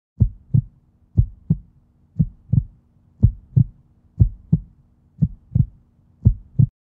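Heartbeat sound effect: low double thumps in a lub-dub pattern, about one pair a second, seven pairs in all, over a faint steady hum, stopping suddenly near the end.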